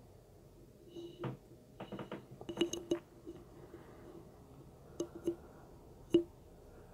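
Scattered short, sharp clicks and knocks with a slight ring to them: a cluster between about one and three seconds in, two more about five seconds in, and a single loudest one near the end.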